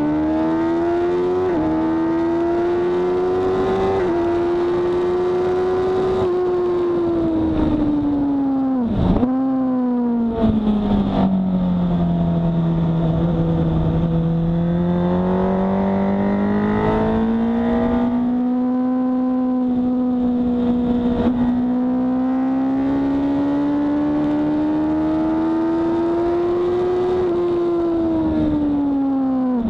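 Sport motorcycle engine at racing pace, with wind rush. Its pitch climbs with quick upshifts about one and a half and four seconds in, then falls as the bike slows for a corner, with a sudden dip and recovery around nine seconds. After that it climbs slowly and steadily as the bike accelerates hard again, changing gear just at the end.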